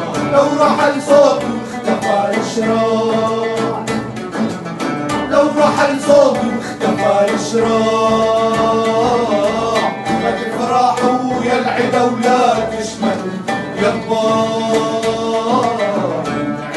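Men singing an Arabic song together, accompanied by a strummed nylon-string guitar, a plucked oud and a hand-beaten frame drum.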